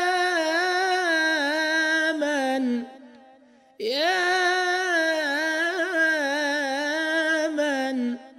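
A man's solo voice sings an unaccompanied Islamic devotional chant (ibtihal) into a microphone in two long drawn-out phrases with wavering ornaments on the held notes. The first phrase falls away and ends about three seconds in, and the second begins about a second later.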